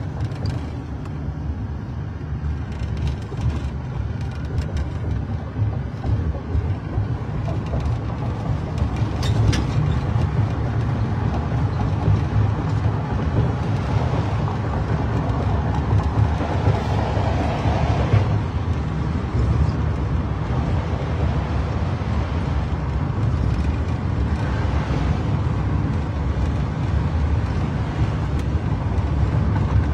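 Steady low rumble of a police car heard from inside its back seat, engine and road noise in the cabin.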